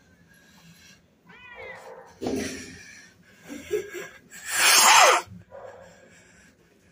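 Shelter cats meowing from their cages: a clear meow about a second in, further cat calls, and the loudest sound, a noisy one lasting under a second, about halfway through.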